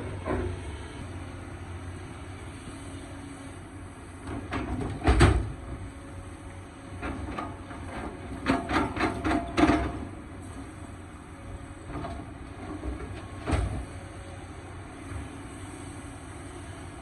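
Excavator running steadily at a low hum, with sharp knocks and bangs from the working machine: one loud bang about five seconds in, a quick run of about eight knocks midway, and another single knock later.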